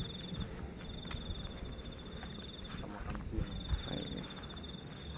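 Night insects: a cricket trilling in bouts of about a second and a half with short gaps, over a steady high-pitched insect drone.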